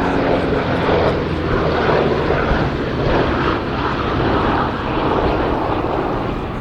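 Radial-engined propeller warbird flying past, its piston engines running loudly and steadily.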